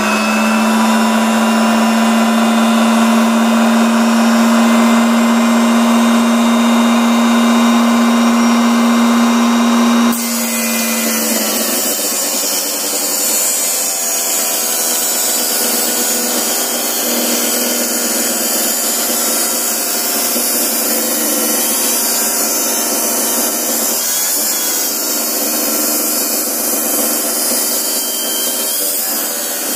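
Small table saw with a brazed-tooth circular-saw blade running with a steady hum. From about ten seconds in it cuts through a wooden piece nearly 7 mm thick, and the sound turns rougher and hissier.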